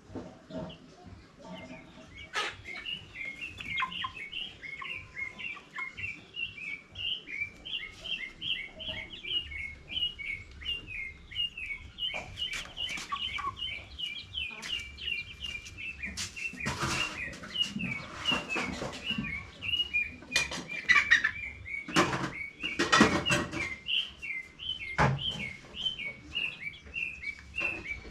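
Chicks peeping: a continuous run of short, high, falling peeps, several a second, from more than one bird. Several loud knocks and rustles in the second half.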